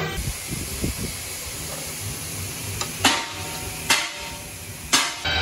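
Three sharp metallic clanks about a second apart in the second half, over a steady hiss of workshop noise, as a heavy steel tube is handled in a saw vise.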